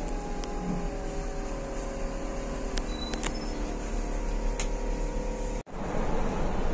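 Cabin sound of an electric bus in slow traffic: a steady hum of several even tones, with a few sharp clicks. After a sudden cut about five and a half seconds in, a louder even road and tyre noise takes over as the bus drives on.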